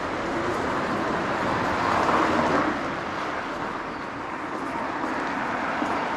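Street traffic noise: a vehicle passing, loudest about two seconds in, over a steady hum of the street.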